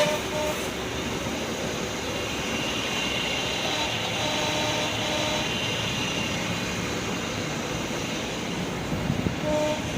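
Steady vehicle noise, with a short horn-like toot near the end.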